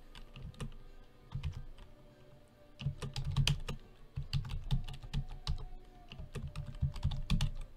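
Typing on a computer keyboard: a run of irregular key clicks, thickest around the middle and again near the end.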